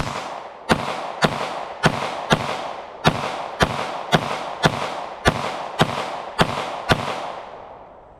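Glock 19 Gen 5 9mm pistol fired in steady rapid fire, about thirteen shots roughly half a second to 0.7 s apart, each followed by a short echo. The string stops about seven seconds in as the magazine runs empty.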